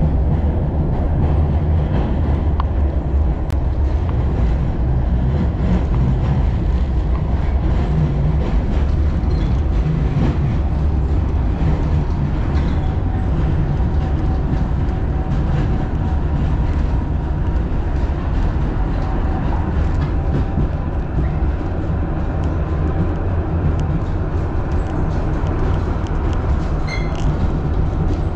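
A city tram running along its track, heard from aboard: a steady low rumble of wheels and running gear with faint rail clicks. A faint whine joins for several seconds around the middle.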